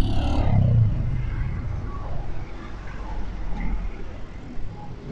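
Low rumble of a motor vehicle on the road, loudest at first and fading away over a few seconds.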